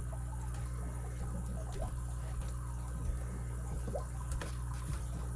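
A few faint metallic ticks from a lock pick and tension wrench working the pin stack of a vintage all-brass Sargent padlock, scattered over a steady low hum.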